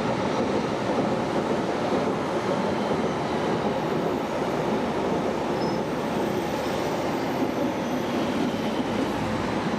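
Berlin U-Bahn train running on the elevated line, a steady noise of wheels rolling on the rails that holds even throughout.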